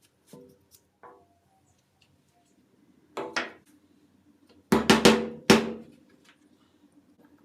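A series of sharp knocks with a short ringing tone, like metal parts being struck or set down on a workbench: two about three seconds in, then four louder ones close together about a second later.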